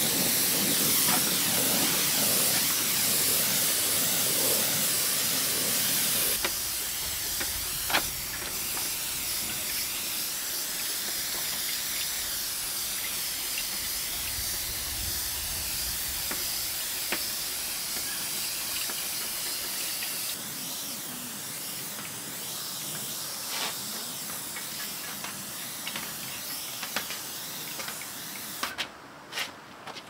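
Air-hose paint spray gun hissing steadily as it sprays, with a few short clicks along the way. The hiss cuts off shortly before the end.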